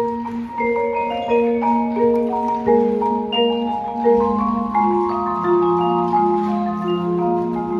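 Marimbas and other mallet keyboards playing a slow melodic passage, each note ringing on and overlapping the next as the line moves.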